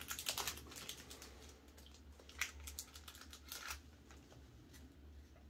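Foil Pokémon booster pack wrapper crinkling and trading cards being handled: a faint scatter of light clicks and rustles, busiest in the first half second, then a few single ticks.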